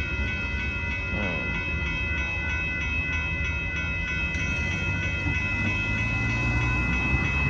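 Railroad grade-crossing warning bell ringing steadily as the crossing gates rise after a freight train has cleared, over the low rumble of the departing rock train; the bell stops just at the end.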